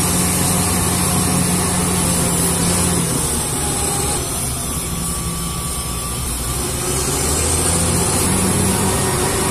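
Crawler bulldozer's diesel engine running steadily as the machine works across mud, easing a little midway and picking up again.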